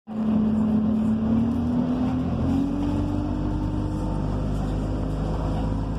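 Service bus engine and drivetrain heard from inside the saloon, running under load with a low rumble and a clear whine that rises slowly in pitch over the first three seconds as the bus gathers speed, then holds steady.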